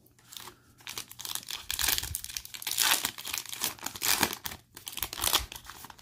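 Plastic-foil wrapper of a 2020 Panini Mosaic football card pack being torn open and crinkled by hand: a rapid run of crackling rustles, loudest around the middle.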